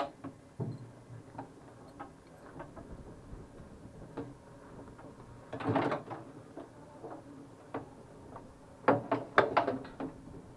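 Scattered clicks and knocks of things being handled in a Spitfire's cockpit with the engine shut down, a cluster of rattling knocks about halfway through and a quicker run of louder knocks near the end.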